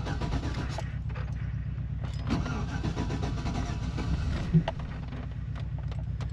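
Chevy Silverado pickup engine idling steadily on its newly replaced fuel pump and sending unit, with a short knock about four and a half seconds in.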